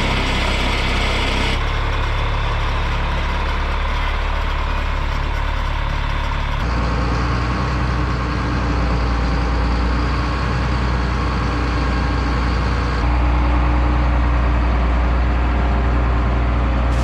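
John Deere 9610 combine's diesel engine running steadily at idle, just after being started. The tone shifts abruptly three times, about a second and a half in, near the middle and about three-quarters through, and it gets slightly louder at the last change.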